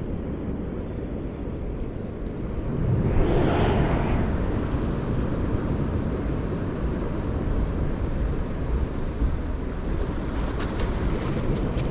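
Low, steady rumble of wind on the microphone, with a louder wash of noise about three seconds in and a few faint clicks near the end.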